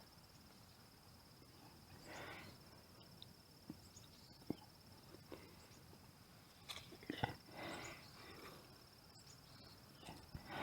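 Quiet lakeside ambience: a faint, steady, high-pitched insect trill runs throughout, with a few soft clicks and brief rustles.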